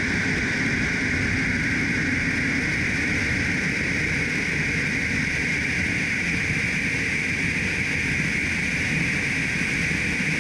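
Steady rushing roar of a MiG-31's two D-30F6 afterburning turbofans at takeoff power, mixed with airflow over the airframe, heard from a camera mounted outside on the fuselage as the jet rolls and lifts off.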